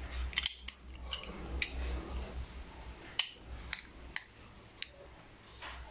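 Small, irregular plastic clicks and taps as fingers handle and squeeze the plastic casing of a correction-tape dispenser.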